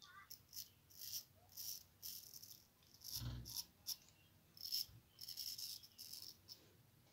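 Carbon-steel straight razor scraping through stubble on the chin and neck over a thin film of soap: about a dozen short, scratchy strokes, with a soft low thump about three seconds in.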